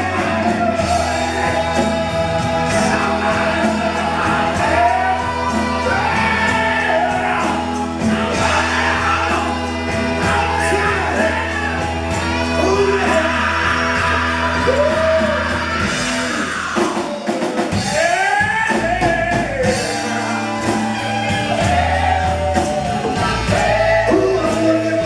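Live rock band playing with lead and backing vocals, over drums, electric guitar and bass. The bass and low end drop out for a few seconds about two-thirds of the way through, then come back in.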